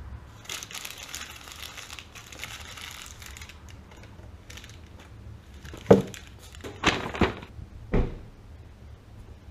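Rustling and crinkling of a rag and gear being handled, then four sharp knocks: the loudest about six seconds in, two close together around seven seconds, and one at eight. A low steady hum runs underneath.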